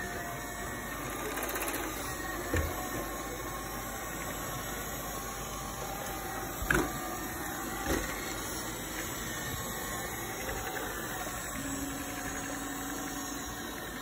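Roborock robot vacuum running steadily as it cleans along an edge of a hard floor, with three short knocks: one a few seconds in and two close together around the middle.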